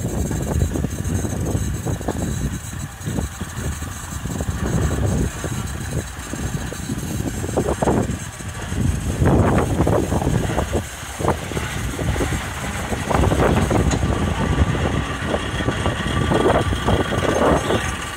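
Small narrow-gauge diesel locomotive's engine running as it shunts along the track, its note rising and falling, louder from about halfway through as it comes close.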